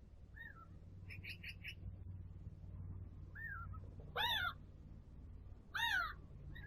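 Wild birds calling: short arched calls, two loud ones about four and six seconds in with fainter ones between, and a quick run of four short notes about a second in, over a steady low background hum.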